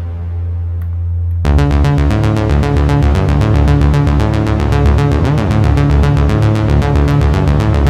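Behringer Crave analog synthesizer in an electronic-music demo: a held low bass note, then about a second and a half in a fast step-sequenced pattern starts with an even, rapid pulse, and a brief sweep comes through around the middle.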